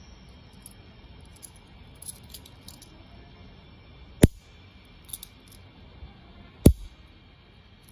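Miniature metal Derringer cap-gun keychain worked with no caps loaded: light metal ticks as it is handled and cocked, then two sharp snaps of the hammer falling, about two and a half seconds apart, the first after about four seconds.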